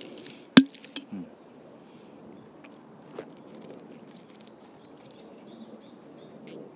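A single sharp plastic-sounding click about half a second in, followed by a few lighter clicks, from handling the pill packet or the shaker bottle. Then faint outdoor background with faint bird chirps in the middle.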